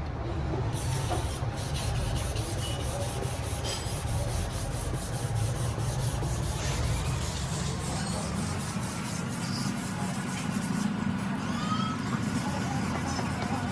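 Abrasive rubbing on a car's plastic headlight lens, a continuous scraping as the foggy surface is worked down, over a steady low rumble.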